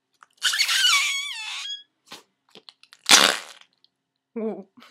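Fart-noise putty squelching in its tube as a finger is pushed into it: a squeaky, fart-like noise about a second and a half long with a wavering, sliding pitch. A shorter squelch follows about three seconds in, and a brief low buzzy note comes near the end.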